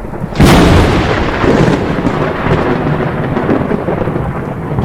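Thunder: a sharp clap about half a second in, then continuous loud rumbling.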